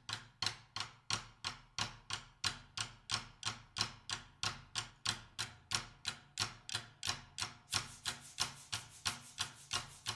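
Steady, evenly timed sharp taps, about two and a half a second, each dying away quickly, over a faint low hum.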